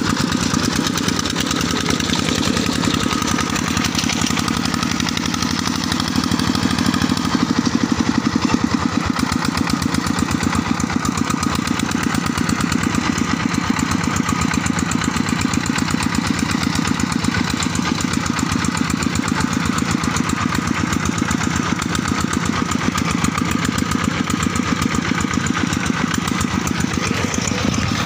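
Single-cylinder diesel engine of a two-wheel tractor pulling a trailer loaded with rice sacks, chugging steadily with a fast, even beat, a little louder about seven to nine seconds in.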